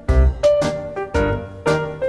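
Background music: piano-led instrumental with a steady beat.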